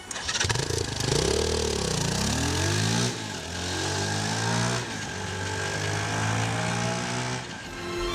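Motorcycle engine revved up and down about a second in, then pulling away, its pitch climbing through gear changes about three and five seconds in.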